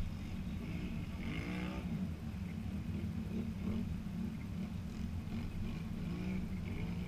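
ATV engine idling steadily, with faint distant voices calling out a couple of times.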